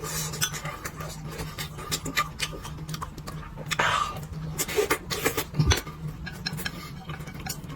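A person eating close to the microphone: chewing food with many short, wet mouth clicks, and one longer slurp about four seconds in.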